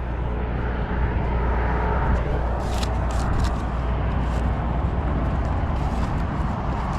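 Steady low outdoor rumble with a hiss, and a few faint sharp clicks about three seconds in.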